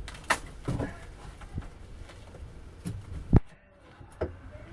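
A few scattered knocks and thumps, the loudest a sharp one about three and a half seconds in.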